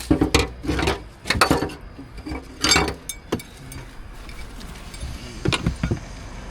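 A series of metallic clinks and knocks: car tools, the jack and wheel spanner, being handled and rummaged through, in a cluster near the start, one about three seconds in, and another pair near the end.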